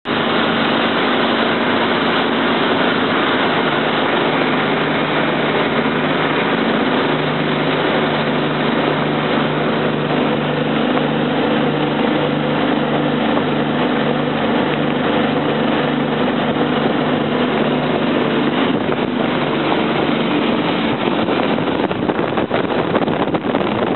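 Fire boat running at speed: a steady engine hum under the loud rush of churning wake water, with wind buffeting the microphone more heavily near the end.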